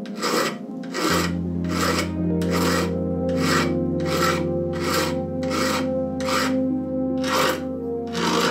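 Steady back-and-forth hand strokes of an abrasive or file, about two a second, during work on a deba knife. Background music comes in about a second in.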